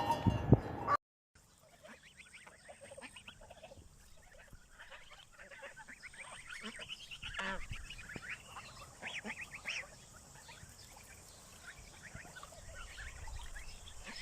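A louder sound cuts off abruptly about a second in. Then a flock of geese and ducks keeps up many short, overlapping calls.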